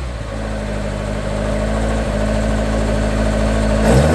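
A car engine idling steadily, getting louder near the end.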